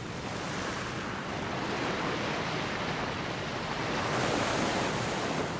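Sea waves washing on a shore: a steady rushing that swells a little around two and four seconds in.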